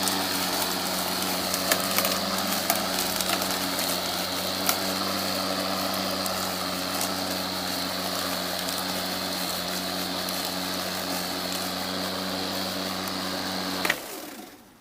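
Ego Power Plus 56-volt battery-powered self-propelled lawn mower running steadily while cutting grass: an electric motor hum with a high whine over the rush of the blade. It cuts off near the end.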